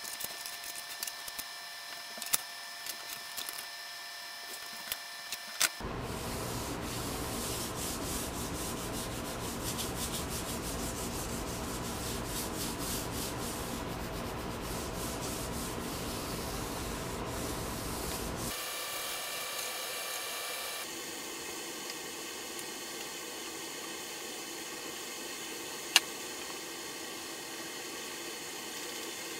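Wood being sanded: a few light clicks and knocks, then about twelve seconds of steady sanding. Near the end it drops to a quieter steady hiss with one sharp click.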